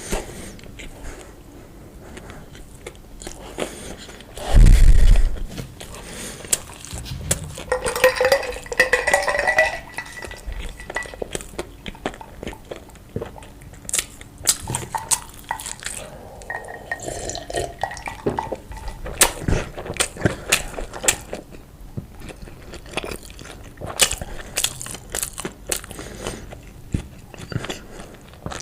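Close-miked eating: chewing and crunching with frequent small clicks of cutlery against dishes. There is one heavy low thump about five seconds in.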